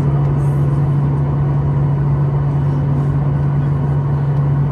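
Steady cabin drone of a Boeing 737-800 in flight: its CFM56 turbofan engines and rushing airflow, with a strong low hum held at one pitch.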